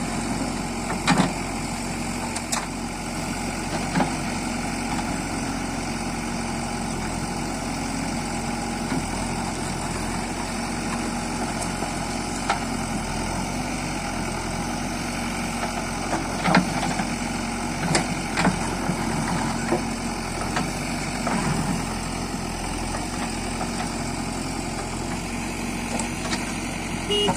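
Diesel engine of a JCB 3DX backhoe loader running steadily at low revs, with sharp knocks now and then, a few near the start and several more in the second half.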